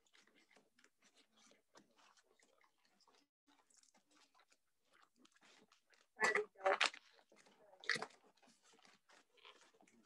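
Cardboard and paper packaging being opened by hand and with scissors: faint steady rustling, crinkling and snipping. A little past the middle come a few short, much louder rips of packaging, and one more about a second later.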